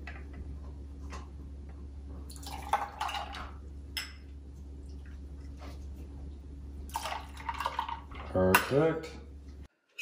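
Grapefruit juice poured from a small glass into a metal jigger, splashing in two short spells a few seconds apart, with a single metal clink between them. A steady low hum runs underneath.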